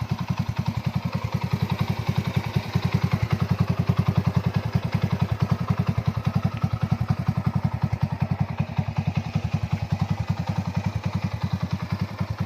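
A restored old motorcycle's engine idling steadily, its exhaust putting at about ten even pulses a second.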